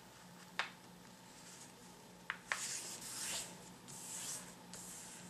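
Paper being rubbed and smoothed flat by hand against a wooden tabletop to press a fold crease: soft swishing strokes, strongest from about halfway through, with a few short ticks.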